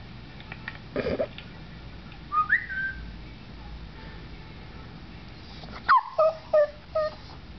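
Border collie vocalising: a short whine about a second in, a higher rising, whistle-like whine a little later, then near the end four quick, short howling yips with its head thrown back.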